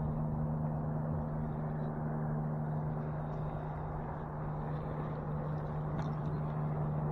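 A steady low hum under an even rushing, rumbling noise like wind on the microphone.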